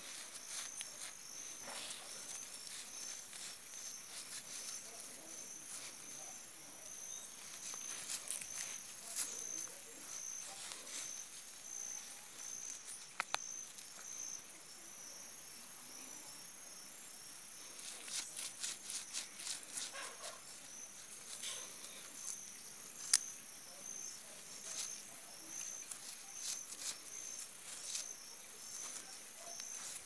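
An insect chirping steadily in a high, even rhythm of about two chirps a second. Over it come scratchy rustles and clicks of hands scraping soil and brushing the vine, in a thick flurry about two-thirds through.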